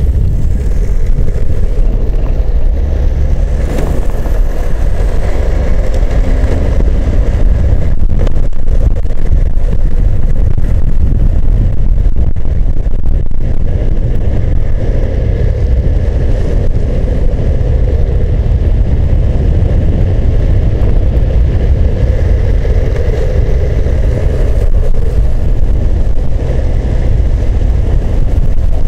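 Loud, steady wind buffeting on the microphone during a fast downhill longboard run, mixed with the rumble of longboard wheels rolling over asphalt.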